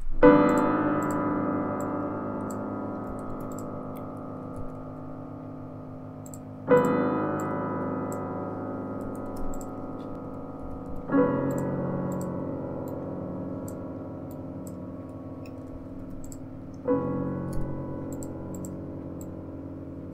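Background keyboard music: four sustained electric-piano-like chords, each struck and left to fade slowly, one every four to six seconds.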